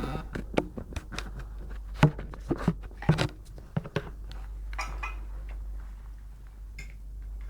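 Scattered clicks, taps and knocks close to the microphone, loudest about two seconds and three seconds in, over a low steady hum.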